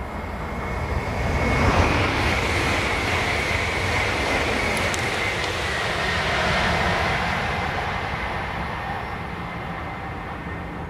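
High-speed electric passenger train passing at speed: a dense rush of wheel and air noise that swells about two seconds in, with a steady high whine running through it, then slowly fades as the train draws away.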